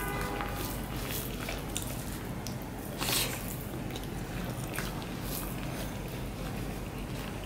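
Fingers squishing and mixing rice with vegetable curry on a banana leaf: a run of soft wet clicks and squelches, with one louder one about three seconds in.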